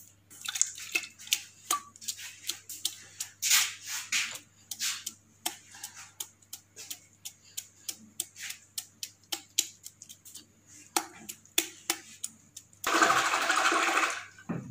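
A hand splashing and squelching in buttermilk, scooping up freshly churned butter, with a run of irregular wet splashes and clicks. Near the end comes a louder rushing noise for about a second.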